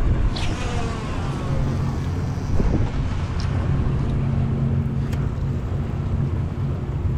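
Steady low drone of a sportfishing boat's engines under way, with wind buffeting the microphone. A few faint high squeaks and clicks come through it.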